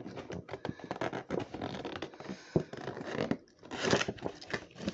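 Fingers scratching and picking at a cardboard toy box with a clear plastic window, a run of scratchy rustles and small clicks from the packaging, with a brief lull about three and a half seconds in.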